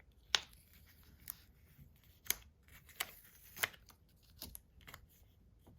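A strip of tape being cut with a sharp knife: a series of short, sharp scrapes and clicks, about eight spread over a few seconds.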